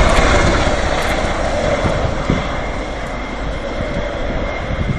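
Bell Boeing CV-22 Osprey tiltrotor's Rolls-Royce AE1107C turboshaft engines and proprotors: a loud rushing drone with a steady high whine through it, fading as the aircraft moves away.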